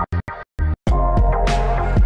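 Background electronic music with a steady bass line. In the first second it is cut into a few short bursts with brief silences between them, then plays on.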